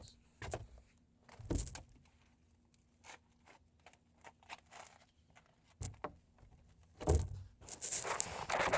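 A few scattered knocks and thunks, then a heavier thump about seven seconds in, followed by dense, irregular scratchy rubbing noise.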